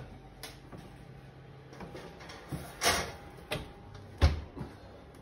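A cake tin going into a wall oven with a few knocks and metal clatters, then the oven door shut with a thud a little after four seconds in, the loudest sound.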